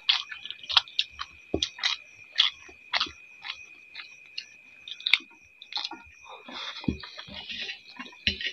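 Close-up eating sounds: chewing and wet lip smacks from people eating rice and mushroom curry by hand, in sharp irregular clicks about twice a second. A faint steady high-pitched tone runs underneath.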